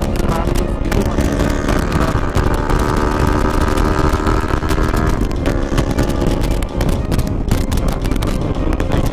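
A motor scooter and motorcycles running at road speed, with wind buffeting the microphone. A steadier, higher engine tone holds from about two to five seconds in.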